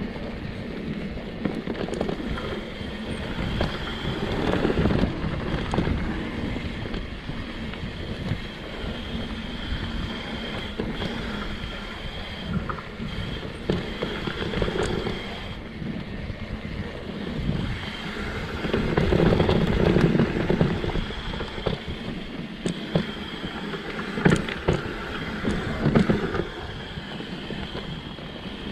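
Mountain bike descending a dirt downhill trail: tyres rolling and scrubbing over dirt, the bike rattling over bumps, with wind on the microphone. The noise swells louder a few times, and there are a couple of sharp knocks near the end.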